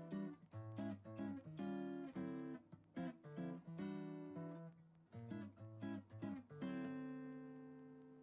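Acoustic guitar strummed and picked through a quick run of chords. A final chord is left to ring out and fade over the last second and a half.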